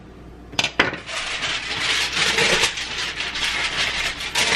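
A sharp knock, then aluminium foil crinkling and rustling steadily as it is handled and shaped.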